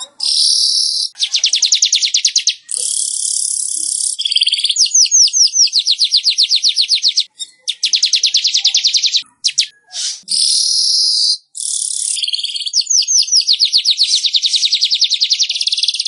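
Manyar weaver bird song: long runs of very rapid, dry chattering trills, broken by short pauses. A harsh wheezy hiss comes about three seconds in, and quick sliding notes lead into the trills twice.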